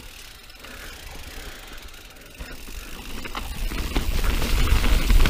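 Mountain bike riding down a dirt singletrack trail: tyre and trail noise with clicks and rattles from the bike, under a low rumble. It is quieter for the first few seconds, then grows steadily louder from about three seconds in as the bike picks up speed.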